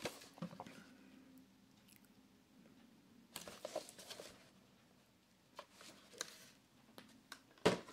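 Faint handling noise of a plastic video hardbox case being turned over in the hands: soft rustling and scraping, then a few light clicks, the sharpest just before the end.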